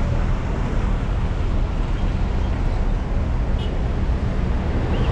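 Road traffic at a busy junction: a steady low rumble of engines and tyres from cars, minibuses and lorries creeping past.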